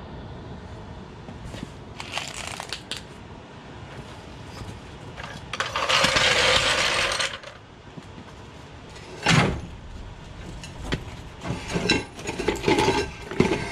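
Steel clanks and knocks as the rusty front axle beam of a 1960 VW Beetle is worked off its mounts and out on a floor jack over a concrete floor. Near the middle there is a harsh rush of noise about two seconds long, then one heavy knock, and several sharper clanks near the end.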